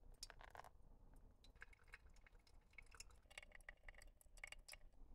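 Faint drips of brewed coffee falling from a ceramic Hario V60 dripper into a glass server, heard as scattered small ticks and drips against near silence.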